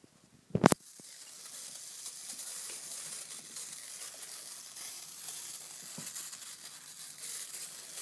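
A sharp knock less than a second in, then a steady rustling hiss: a cat's fur brushing against the phone's microphone.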